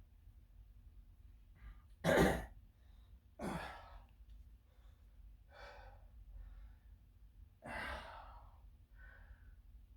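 A person breathing hard from exertion during weightlifting: about five heavy, noisy exhalations a second or two apart. The loudest comes about two seconds in.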